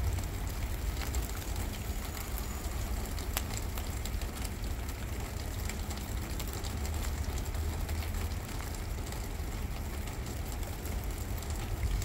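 Strong wind buffeting the microphone: a steady low rumble with a few faint ticks of light rain.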